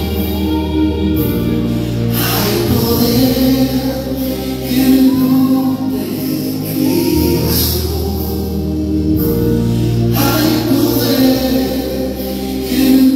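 Christian gospel song: several voices singing over a band, with a deep bass line that changes note every couple of seconds and cymbal crashes a few times.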